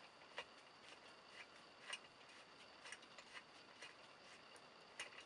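Faint, irregular small metallic clicks, about one or two a second, as a helicoil insert is wound into a tapped hole in an aluminium transfer case with a hand insertion tool.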